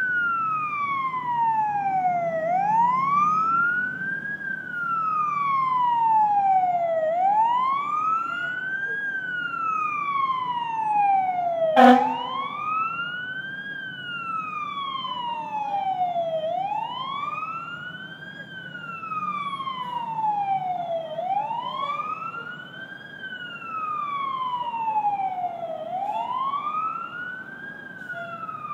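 Police car siren sounding steadily in a slow wail, its pitch climbing and falling about once every four and a half seconds, over a low steady rumble. A single sharp click comes about twelve seconds in.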